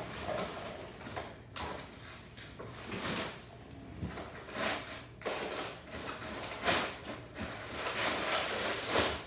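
A kitchen freezer being opened and searched: a run of irregular knocks, rustles and scrapes as a door or drawer slides and frozen items are shifted.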